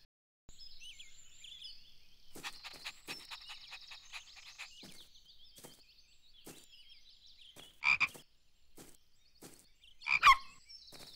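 Cartoon frog croaking in a series of short, clicky calls, two of them louder near the end, over a steady background of high-pitched chirping.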